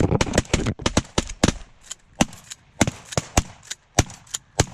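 Several hunters' shotguns firing a rapid volley of about twenty shots, some loud and close, others fainter. The shots come close together at first and spread out toward the end.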